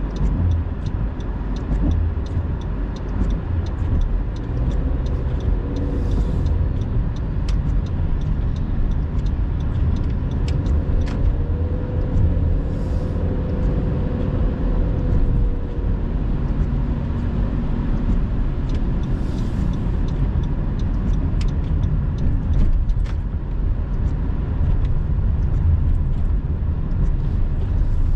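Steady low rumble of a car driving on wet roads, heard from inside the cabin, with scattered ticks of raindrops hitting the windshield. Brief swishing swells come every six or seven seconds as the windshield wipers sweep.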